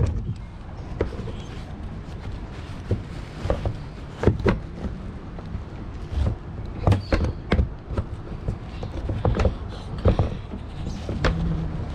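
Irregular knocks and bumps of gear and hands moving about on a kayak, about a dozen over the stretch, over a steady low rumble.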